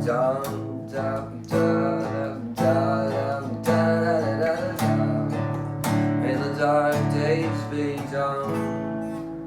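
Acoustic guitar strumming chords, about one strum a second, ringing on between strokes and dying away near the end.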